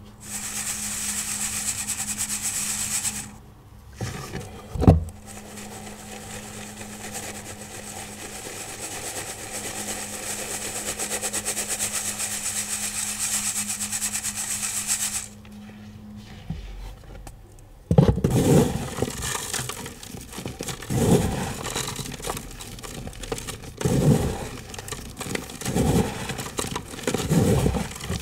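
Powdered iron oxide pigment being sifted, a steady fine hiss, with a single knock about five seconds in. In the second half, pigment pebbles are crushed in a run of separate crunches every second or two.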